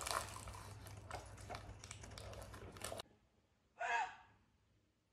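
Paper snack bags being handled, a dense crinkling and rustling that cuts off suddenly about three seconds in. Nearly a second later comes one short breathy vocal sound, like a gasp.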